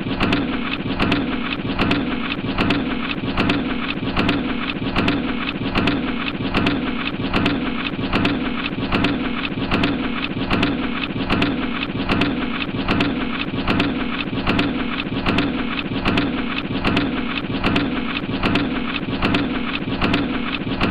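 Factory press machine running continuously: a dense mechanical clatter over a steady low hum, with sharp knocks repeating at an even, quick beat.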